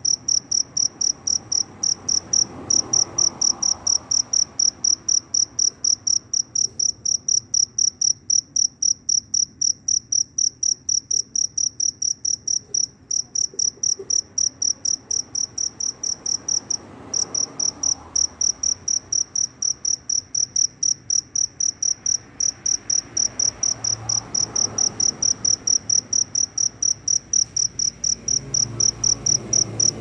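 Male field cricket (jangkrik) at its burrow entrance chirping very loudly, a fast, even train of high chirps, about three to four a second, with one short break partway through. This is its calling song to attract a mate.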